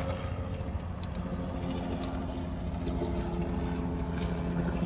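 A steady engine hum, even and unbroken, with a few faint clicks over it.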